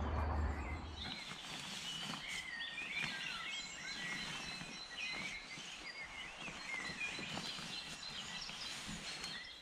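Songbirds singing in woodland, many short overlapping chirps and warbles from several birds.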